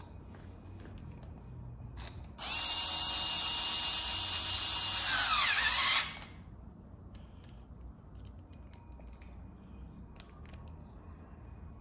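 Electric drill/driver motor running at a steady speed for about three and a half seconds, then winding down in pitch as it stops. A few faint clicks of handling follow.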